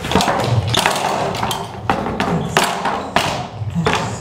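A heavy wooden X made of two crossed beams dragged across a wooden floor by harness straps, knocking and thudding against the boards several times with scraping between the knocks.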